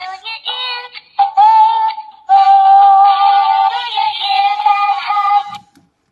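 Peek-A-Boo Elephant plush toy singing a nursery-rhyme tune in a high voice, with short pauses, stopping about half a second before the end.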